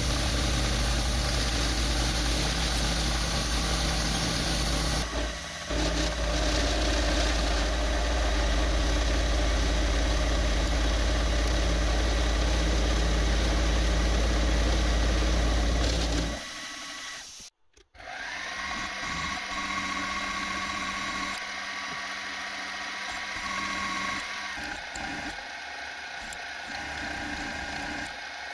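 Milling machine running, an end mill cutting a metal block under coolant, with a loud steady low hum. After a sudden break about two-thirds through, a quieter steady whine follows as a twist drill bores into the block.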